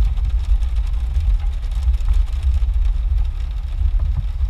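Jeep engine running at low trail speed, heard from inside the cab as a steady, uneven low rumble.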